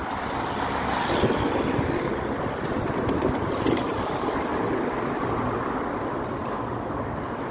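A car drives past on the street, its engine and tyre noise swelling and then easing, over steady street noise.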